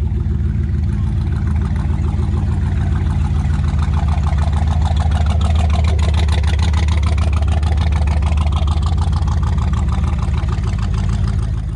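Old Chevrolet pickup's engine running with a loud, low exhaust rumble as the truck pulls slowly away across the grass. The sound swells around the middle as it passes close and eases a little near the end.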